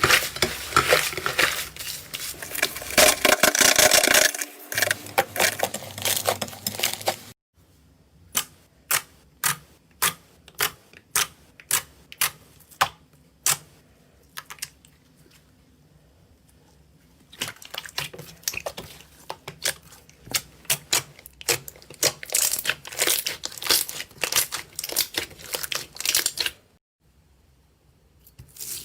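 Slime being squeezed and poked by hand, crackling and clicking as air pockets pop. Dense crackling stops suddenly. It gives way to a run of single sharp clicks about two a second, then after a short lull the dense crackling returns.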